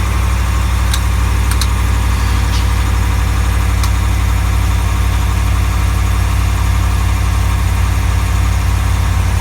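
2020 Ram 1500 pickup's engine idling steadily just after start-up, with a few light clicks in the first four seconds.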